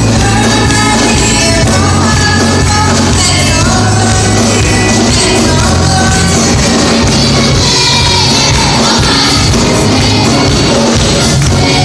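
Upbeat gospel song: voices singing over a band accompaniment, loud and continuous.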